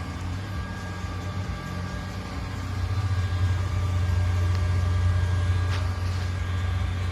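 John Deere 8335RT tracked tractor's diesel engine running steadily with a low hum, growing somewhat louder about three seconds in.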